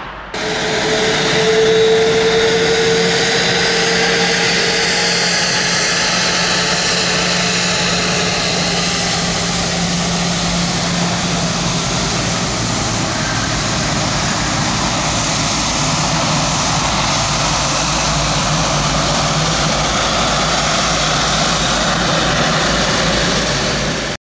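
Jet airliner engines running loud and steady, with a held whine in the first few seconds and a lower hum underneath. The sound cuts off abruptly near the end.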